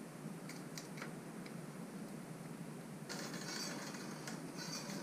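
Faint workshop handling: light clicks and small metallic taps of hand tools and parts at a bicycle's bottom bracket, becoming a denser, irregular ticking after about three seconds.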